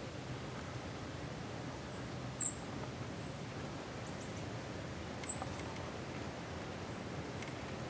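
A small animal's short, high-pitched chirp, twice about three seconds apart, the first louder, over a steady faint background hiss.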